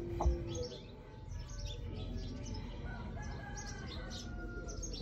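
Small birds chirping over and over, with a rooster crowing once in one long drawn-out call about three seconds in. There is a brief low thump just after the start.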